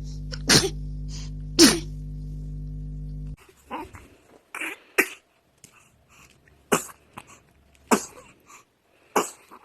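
A string of short, sharp baby sneezes, two of them over a steady electrical hum that cuts off about a third of the way in, then several more spaced about a second apart.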